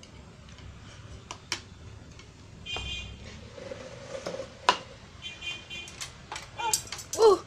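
Scattered clicks and knocks of a plastic spoon and cup against a plate on a tabletop, with a short voice sound near the end.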